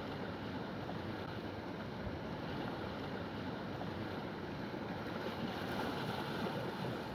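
Steady wash of sea and wind, with no distinct strikes or tones.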